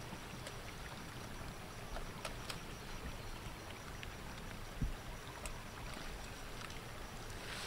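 Outdoor ambience: a low, fluctuating rumble of wind on the microphone with faint rustling and clicks as hands and feet push through leafy plants, and a soft thump about five seconds in.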